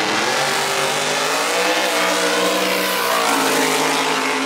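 Drag-racing street cars launching from the start line and accelerating hard down the strip, engine note climbing in pitch.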